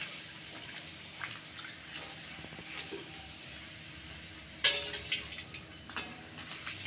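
A garlic-flavoured kerupuk puli rice cracker sizzling in hot oil in a wok as a spatula presses and turns it while it puffs up. One brief louder sound comes about two-thirds of the way through.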